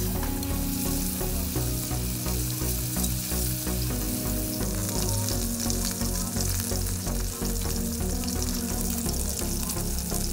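Sausage pieces and meatballs frying in oil in an aluminium mess tin, a steady sizzle.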